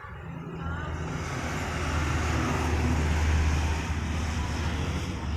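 A motor vehicle passing close by on the road, its engine hum and tyre noise building to a peak about three seconds in and then fading.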